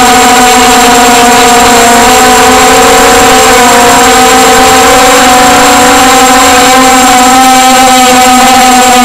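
Small multirotor drone's electric motors and propellers whining steadily at close range, very loud, with a few tones that shift slightly in pitch as the drone manoeuvres.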